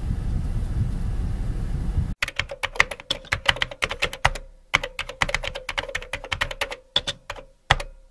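Low, steady rumble inside a car for about two seconds, then an abrupt switch to a keyboard-typing sound effect: fast, irregular clicks in quick runs with short pauses, matching text that appears letter by letter.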